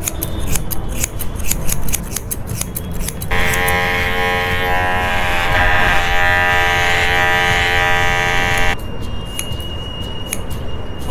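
Barber's scissors snipping rapidly for about three seconds, then electric hair clippers buzzing steadily for about five seconds as they trim the nape, stopping suddenly. Scissor snips resume near the end.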